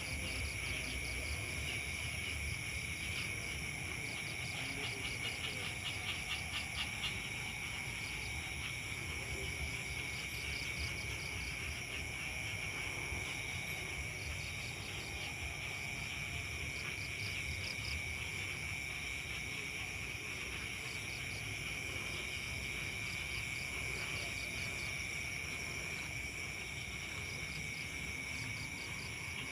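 Chorus of night insects, crickets among them, trilling steadily at several pitches, with a fast pulsing chirp that comes and goes, over a low rumble.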